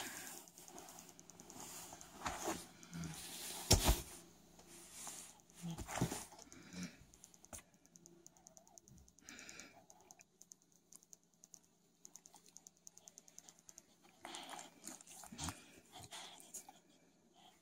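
A puppy gently mouthing and nibbling a person's hand while shifting in bedding: irregular soft clicks, scuffs and rustling with a few louder knocks, the sharpest about four seconds in.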